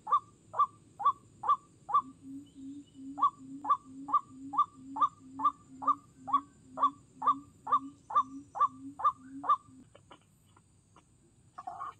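White-breasted waterhen calling: a loud, harsh note repeated about twice a second, with a lower note alternating with it from about two seconds in. The calling pauses briefly about two seconds in and stops just before ten seconds.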